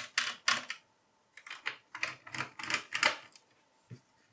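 Small screwdriver turning out the screws of a mini PC's metal drive bracket: a run of short clicks and scrapes, most of them between about one and three and a half seconds in, with a single click near the end.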